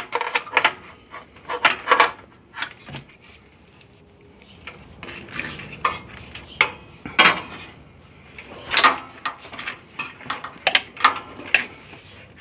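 Irregular clinks, taps and scraping as braided hose line and its metal fittings are handled and fed around an engine bay, knocking against the radiator support and engine parts, with a couple of longer rustling scrapes midway.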